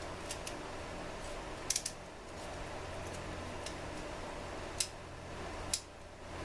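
A handful of light, sharp clicks and taps of small tools and carburetor parts being handled during work on a Walbro WA-series chainsaw carburetor, over a steady low background hum.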